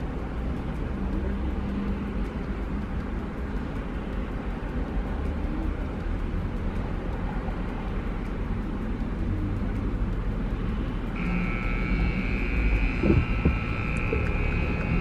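A car running on the road, heard from inside the cabin as a steady low rumble. About eleven seconds in, a steady high-pitched electronic tone starts and holds, with a couple of short knocks a little later.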